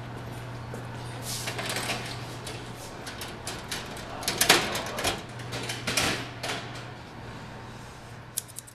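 Metal hallway locker being opened and rummaged through: several clattering, rattling bursts, the loudest about four and a half seconds in, and a few quick clicks near the end, over a steady low hum.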